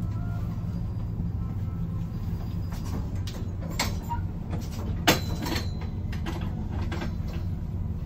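Interior sound of a KiHa 185 series diesel railcar running along the track: a steady low engine and running drone, with wheels clicking and knocking over rail joints and points, the sharpest knock about five seconds in.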